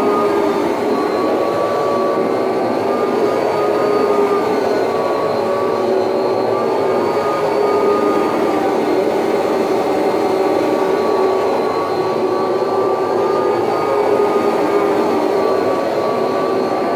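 Kirby Heritage II upright vacuum cleaner running with its Rug Renovator shampoo attachment as it is worked across carpet: a loud, steady motor whine whose pitch wavers slightly as the machine is pushed and pulled.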